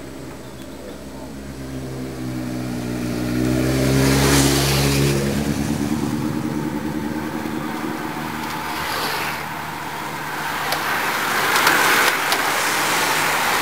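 A motorcycle engine approaches and passes, swelling to its loudest about four seconds in and then fading. Near the end, a bunch of racing bicycles sweeps past with a rushing whir of tyres.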